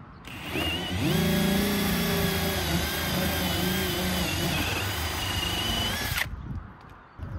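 Cordless drill spinning up and boring into the shingle roof for about five seconds. Its motor whine wavers in pitch as the bit loads up, then stops abruptly.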